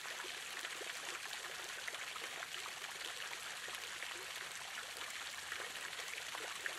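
Water flowing and trickling steadily, a continuous wash of fine splashes at an even level.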